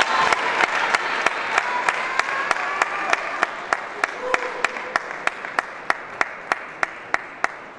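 Crowd applause after a point in a table tennis match, with steady rhythmic clapping about three claps a second, fading and stopping near the end.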